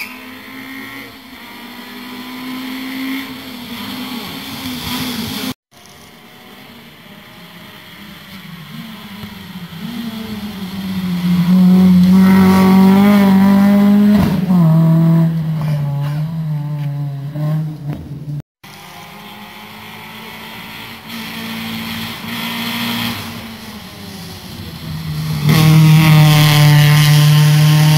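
Rally cars driven flat out, approaching one after another, engines revving hard with the pitch climbing and dropping through gear changes; the loudest runs come about halfway through and near the end. The sound breaks off abruptly twice.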